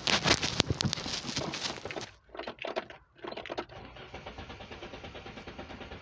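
Renault 9 engine started from cold: a loud clattering crank for about two seconds, a couple of stumbling catches, then it settles into a steady idle with an even rhythmic beat. This engine has a knock in it.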